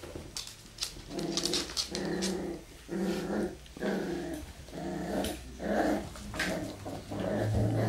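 Two puppies play-growling in repeated short growls, about one a second from about a second in, as they tug at a shoe between them.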